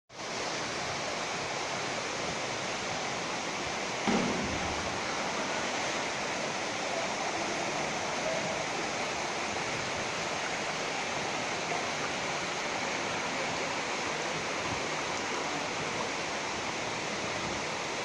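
Waterfall: a steady rush of falling water that does not change, with a brief thump about four seconds in.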